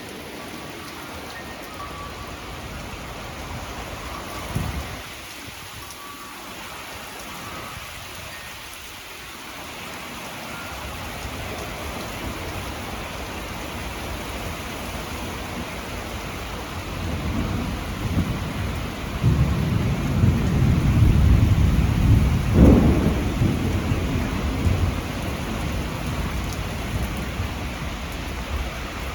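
Rain falling steadily in a thunderstorm. There is a short sharp crack a few seconds in, and a long low rumble of thunder swells about two-thirds of the way through, then fades.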